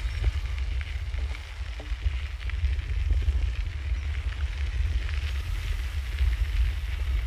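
Wind buffeting the recorder's microphone while cycling: a steady, gusting low rumble, with a faint hiss and small crackles above it.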